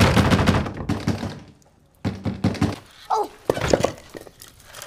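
Hands pounding rapidly on a heavy wooden door: a loud flurry of knocks that fades out, then after a short pause a few more thuds about two seconds in and again near the middle.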